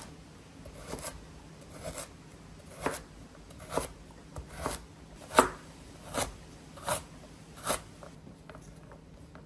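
Kitchen knife chopping carrots on a cutting board: about nine slow, separate cuts, roughly one a second, that stop near the end.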